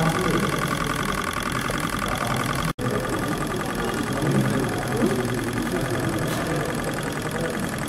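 Small model engines running with a steady, rapid mechanical clatter. Faint voices are in the background, and the sound drops out for an instant nearly three seconds in.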